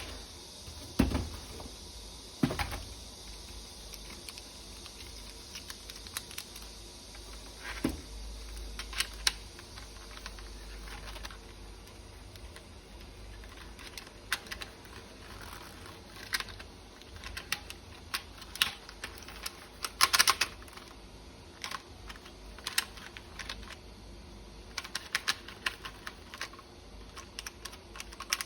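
Hard plastic toy parts being handled: irregular small clicks and knocks. There are a couple of duller thuds in the first few seconds and a short burst of rattling clicks about twenty seconds in.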